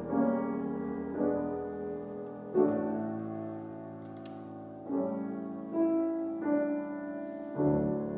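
Grand piano played solo: slow, full chords struck one after another, about seven in all, each left to ring and fade before the next.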